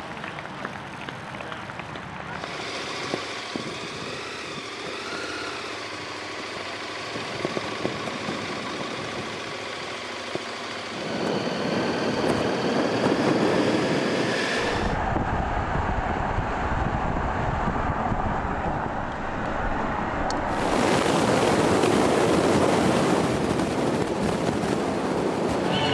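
A motorcycle running along a road, heard from on board as a steady rush of wind and engine noise, much louder from about eleven seconds in.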